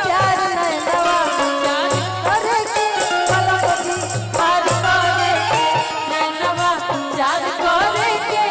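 Bhojpuri folk song music: a wavering, gliding melodic lead over a steady rhythmic drum beat.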